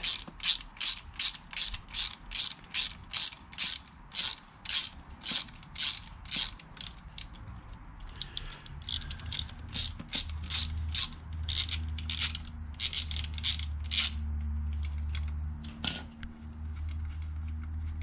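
Socket ratchet clicking in quick, even runs of about three clicks a second as it undoes a brake caliper's pad retaining pin, breaking off for a moment about halfway. A low steady rumble comes in during the second half, with one sharp click near the end.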